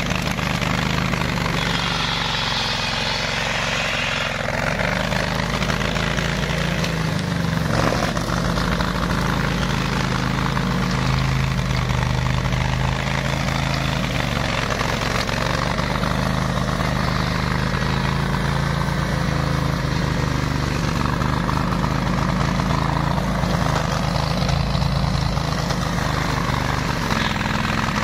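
The 18 hp engine of a ride-on flail mower running steadily, its pitch wavering slightly.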